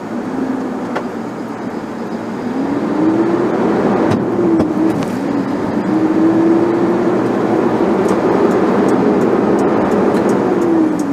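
Engine and road noise heard from inside a vehicle pulling away and accelerating. The engine note climbs about two seconds in, dips briefly, climbs again, holds, and falls away near the end as the vehicle eases off.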